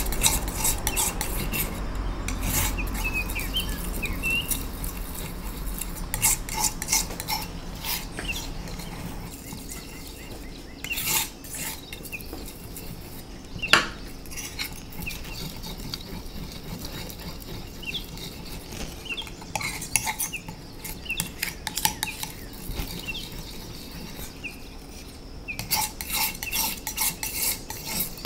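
Metal palette knife scraping and tapping on a flat tile as it mulls a thick paste of pigment and gum arabic into watercolour paint. Irregular scrapes and clicks, one sharper click about halfway through, and quicker strokes near the end.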